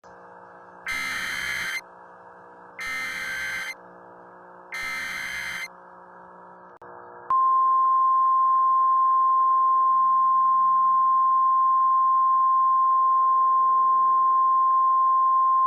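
NOAA Weather Radio emergency alert signal: three short screeching bursts of SAME digital header data over faint radio hiss, then, about seven seconds in, the steady 1050-hertz warning tone that announces an emergency message is about to follow.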